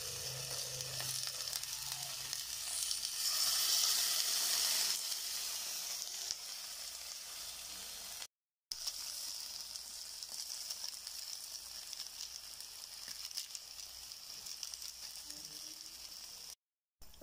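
Vegetables sizzling in a hot nonstick pan as bagoong is poured over them. The sizzle swells about three to five seconds in, then settles to a steady hiss, and drops out briefly twice.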